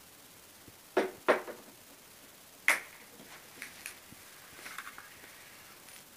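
Handling noise: two sharp knocks about a second in and another shortly after, then a few lighter clicks and a brief rustle.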